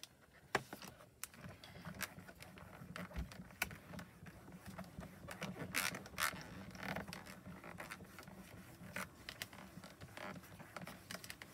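Hands pressing and rubbing on the clear acrylic door of a Mini Misti stamping platform, with faint scattered taps and clicks and soft rubbing noises, as a rubber stamp is pressed onto thick mixed media paper.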